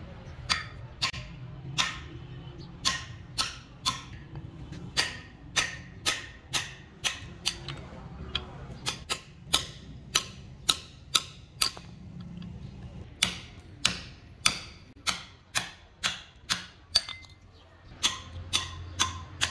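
Hammer striking a steel chisel to cut the worn lining and its rivets off a truck brake shoe: sharp metallic clinks with a short ring, about two a second, in runs with brief pauses between.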